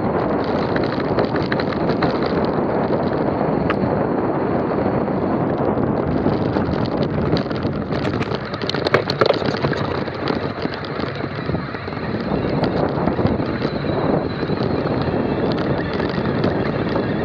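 Wind rushing over the microphone of a mountain e-bike's action camera on a fast descent, with the knobby tyres crunching over loose rock and frequent clicks and rattles from stones and the bike; a cluster of sharper knocks comes about nine seconds in.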